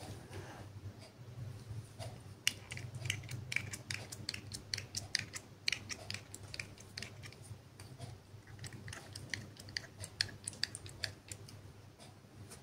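A squeezed cosmetic bottle dispensing product in dabs onto clear slime: a quick, irregular run of small wet clicks and crackles, easing off near the end.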